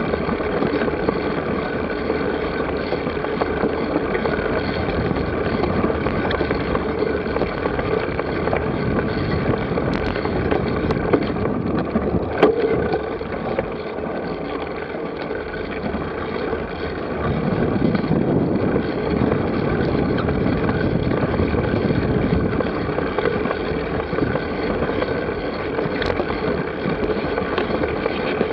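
Steady rushing noise of wind over the microphone and rolling noise, as from a bike-mounted camera on a cyclocross bike being ridden. There are a few sharp knocks, the loudest about twelve seconds in, and the rumble grows louder for several seconds past the middle.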